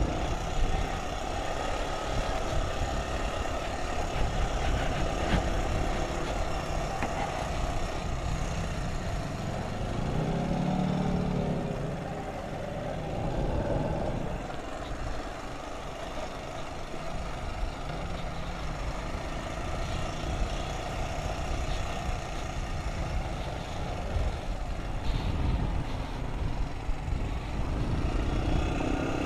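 ATV engine running under way on a rocky dirt trail, its note shifting up and down around the middle as the throttle changes.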